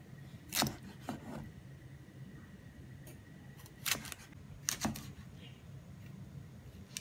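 Chef's knife slicing okra on a plastic cutting board: about seven sharp taps of the blade striking the board, in three small groups with pauses between.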